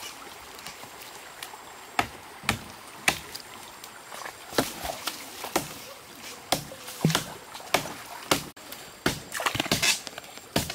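Machete chopping into a tree trunk: a series of sharp chops, roughly one a second. After an abrupt change about eight seconds in, a quicker run of wet knocks and squelches as a wooden stick digs into mud at the water's edge.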